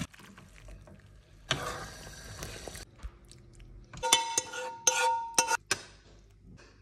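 A metal spoon scraping and knocking against a nonstick frying pan while serving tomato sauce, with a cluster of sharp clinks that ring briefly, from about four seconds in. Before that, a second or so of rushing noise from cooked pasta being tipped into a plastic colander.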